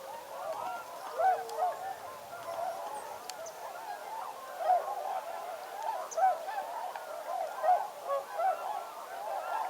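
A large flock of geese honking, many calls overlapping in a continuous chorus.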